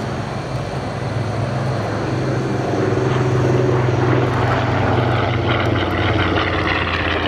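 Grumman Avenger's Wright R-2600 radial engine and propeller droning steadily in a low fly-by, swelling louder toward the middle as the aircraft passes.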